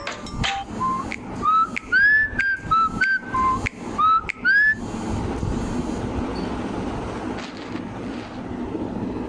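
Huawei phone ringtone made of short upward-sliding whistle notes, about ten of them over the first five seconds, followed by a steady hiss of noise with no tones.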